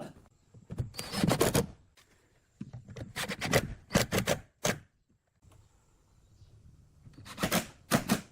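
Hand tools working wood: clusters of sharp knocks and scraping strokes, with short pauses between them.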